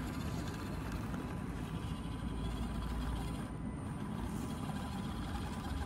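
Small 90-turn 130-size brushed electric motor and gear train of a 1/24-scale RC crawler running steadily under load as the truck crawls up a steep rock face.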